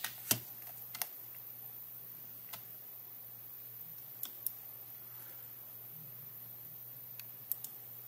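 Sharp, single clicks of a newly soldered replacement micro switch under the open Mionix Naos 7000 mouse's scroll wheel, pressed about nine times at irregular intervals, the loudest near the start and a quick pair near the end. The switch clicks like a working middle mouse button.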